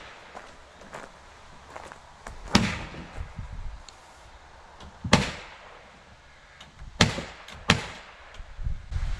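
Sharp, irregular knocks of carpentry work on a wood house frame: four loud strikes a second or two apart, each with a short ringing tail, and fainter knocks between them.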